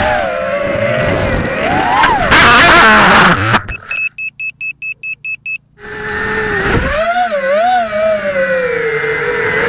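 Electric motors of an FPV racing quadcopter whining, pitch wavering with the throttle, heard from its onboard camera. About two seconds in a loud burst of noise as it crashes into the grass, the motors stop, and a rapid run of high electronic beeps follows, about five a second. Near six seconds the motor whine starts again, wavering.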